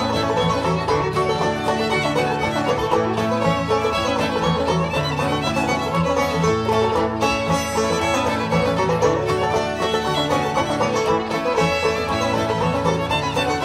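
Background music: a bluegrass-style tune with fiddle and banjo, playing steadily.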